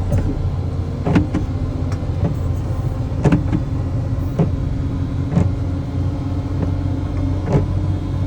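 Steady drone of a vehicle running, heard from inside the cab, with a sharp tick repeating about once a second.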